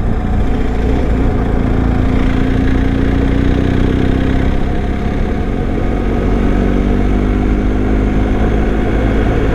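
BMW R1250's boxer-twin engine running while riding along at a steady pace, its note rising and falling slightly, over a heavy low rumble.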